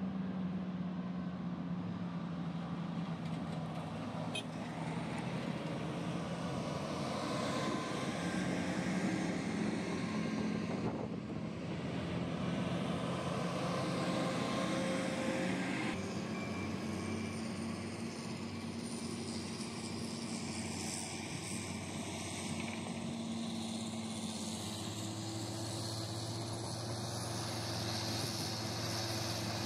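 Large diesel mining haul trucks driving on a gravel haul road: a steady low engine drone with tyre and gravel noise, growing somewhat louder around the middle as one truck passes close.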